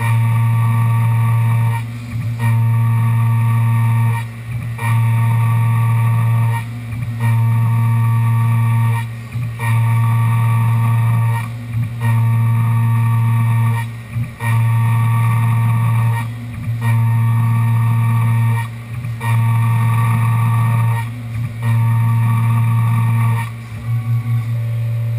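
Tormach 1100M CNC mill cutting a part: a loud, steady machine hum with a fainter whine above it. The sound breaks off briefly about every two and a half seconds in a regular cycle, and near the end it changes to a quick pulsing, about three beats a second.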